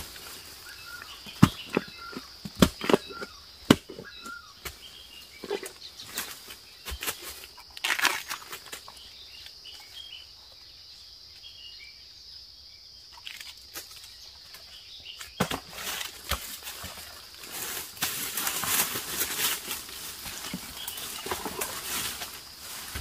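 A wooden-handled digging tool striking into soil and roots to dig out a bamboo shoot, several sharp knocks in the first few seconds, then smaller scrapes and ticks. Later come footsteps and rustling through dry bamboo leaf litter and brush, with a steady high-pitched insect buzz behind.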